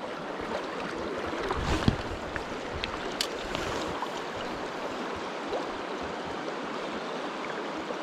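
Fast, shallow river current rushing steadily, with a few small knocks and clicks, the loudest about two seconds in.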